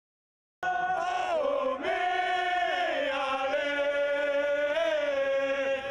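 Men's voices singing a chant together in long, held notes that slide up and down in pitch, starting abruptly about half a second in after silence.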